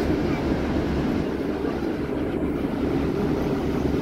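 Steady low rumble of a double-decker bus in motion, engine and road noise heard from inside on the upper deck.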